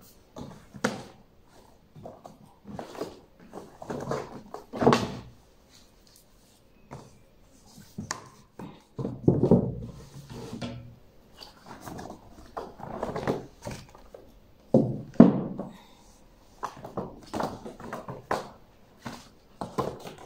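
Books being handled and set on the shelves of a book display stand: irregular knocks and thuds with paper rustling as they are picked up, shuffled and put in place, the heaviest knocks about 5, 9 and 15 seconds in.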